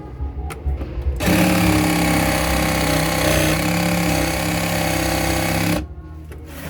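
Power tool cutting a speaker hole in a boat panel: a steady hum with a dense hiss that starts about a second in, runs for about four and a half seconds and stops abruptly. There are lighter clicks and knocks before and after it.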